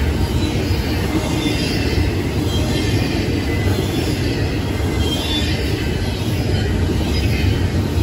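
Double-stack intermodal train's loaded well cars rolling past at close range: a steady heavy rumble of steel wheels on the rails, with scattered faint high-pitched wheel squeals.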